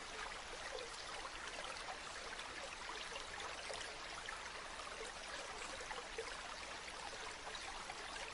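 Stream of running water flowing steadily, an even rushing hiss with small scattered splashes.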